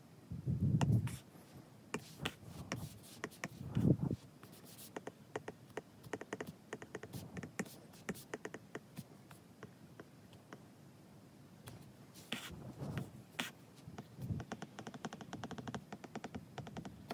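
Apple Pencil tip tapping and scratching on an iPad's glass screen while writing by hand: many quick, light clicks in irregular runs. A few soft low rumbles come in near the start and again around four seconds in.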